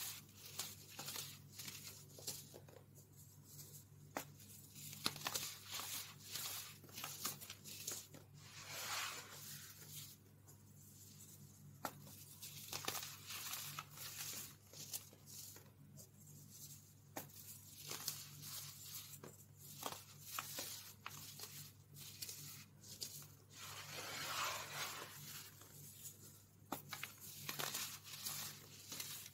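Clumps of baking soda being squeezed and crumbled between the fingers: a dense, irregular crackle and crunch. It swells louder in several bursts.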